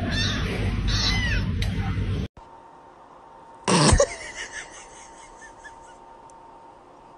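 Kitten meowing, a few high, arching mews over a loud rumbling background in the first two seconds. This stops abruptly and gives way to a quieter room, with one short loud sound about four seconds in and faint chirps after it.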